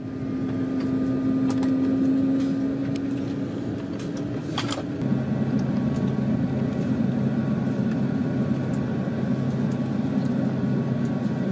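Airbus A350-900 Rolls-Royce Trent XWB jet engines heard inside the cabin: a steady engine-start whine rising slightly in pitch, then, after a brief click about five seconds in, a lower, rougher steady drone.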